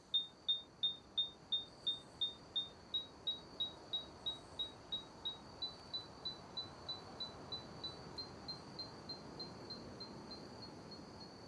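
Electronic signal-detector beeping: short high-pitched beeps at about three a second, creeping slightly upward in pitch and fading steadily away, over a faint steady high tone.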